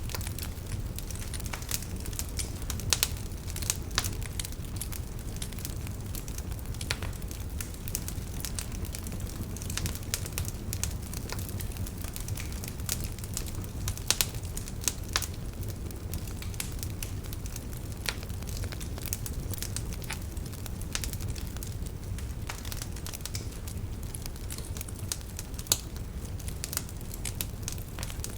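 Wood fire crackling in a fireplace: a steady low rumble of burning with frequent sharp snaps and a few louder pops.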